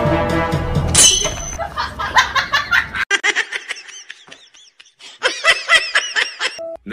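High-pitched laughter in quick repeated 'ha-ha' bursts, coming in several runs with the longest a little past five seconds in. A music track cuts off about a second in.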